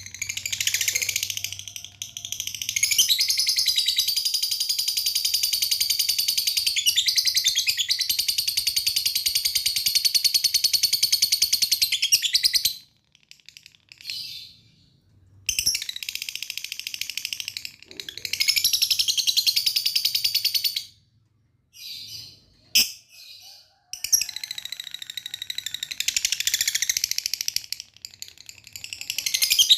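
Lovebird singing in long runs of rapid, high chattering, the longest lasting about ten seconds, broken by short pauses and a few brief chirps.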